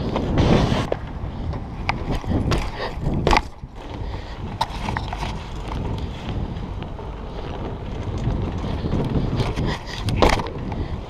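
BMX bike rolling over concrete pavement: a continuous tyre rumble with scattered sharp clicks and knocks from the bike, and a louder knock near the end.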